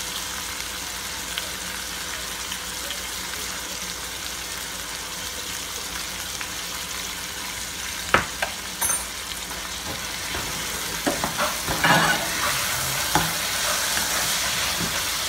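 Tadka masala of onion, garlic, green chilli and chopped tomato sizzling in a metal frying pan. A metal spoon stirs it, knocking and scraping against the pan a few times from about eight seconds in, and the sizzle grows louder near the end.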